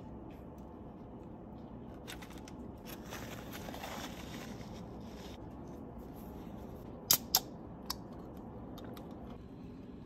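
Crinkling of an aluminium-foil sandwich wrapper, then two sharp metallic clicks close together about seven seconds in, with a fainter third click just after, from an aluminium Red Bull can being handled.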